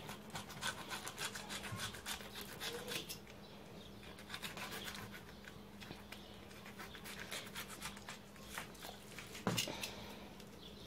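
Knife slicing a fillet off a striped bass: a faint, irregular run of short scraping strokes as the blade saws through the flesh along the backbone and rib bones on a plastic cutting board. A faint steady hum sits underneath.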